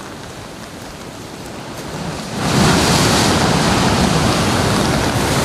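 Rough sea surf breaking and rushing on a beach in stormy weather, with wind noise. It becomes much louder about two and a half seconds in.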